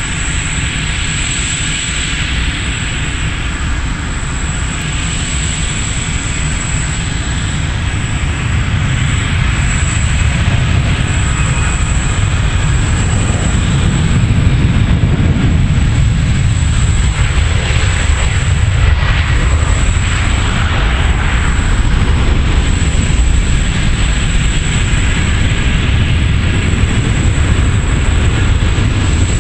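Twin General Electric CF34-10E turbofan engines of an Embraer E190 at takeoff thrust: a loud, steady jet rumble that grows over the first half as the airliner rolls down the runway, lifts off and climbs away.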